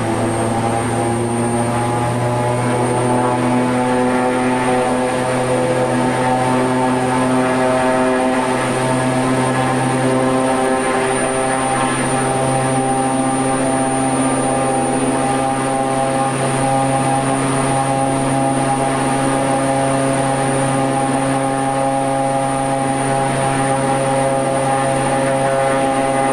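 Shorts 360's Pratt & Whitney Canada PT6A-65AR turboprops running, heard from the cockpit, as one engine is run up to about 1,600 prop rpm for the overspeed governor test. The steady multi-tone propeller drone rises slightly in pitch over the first few seconds, then holds.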